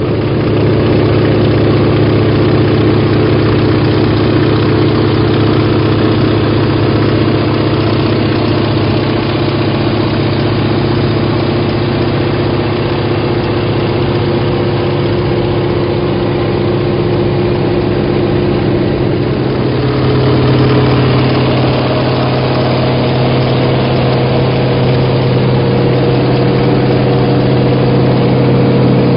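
Antonov An-2's nine-cylinder Shvetsov ASh-62IR radial engine and propeller running steadily in flight, heard from inside the cockpit. Its pitch steps up slightly about two-thirds of the way in.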